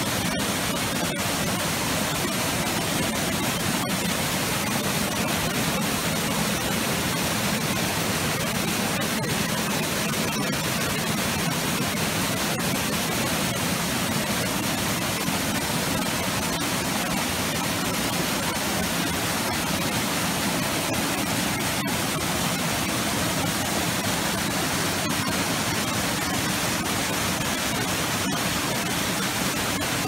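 Hot thermal spring water pouring in a small waterfall over travertine rock, heard close up as a steady, unbroken rush.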